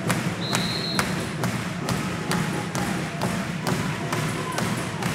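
Fans' big drum beaten in a steady rhythm, about two beats a second, over the noise of a crowded sports hall. A short whistle blast, typical of the referee's signal for serve, sounds about half a second in.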